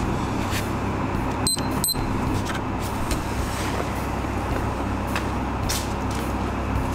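ADVANTEC DR218 box-type hot-air dryer running, its circulation fan and motor giving a steady noise with a low hum, briefly cut twice about a second and a half in.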